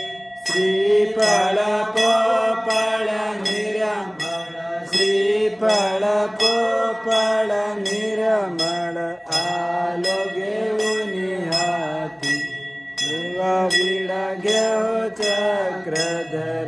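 Group devotional singing of an aarti to Chakradhar Swami, with a hanging temple bell struck in a steady beat, two or three strokes a second, its ring carrying on between strokes.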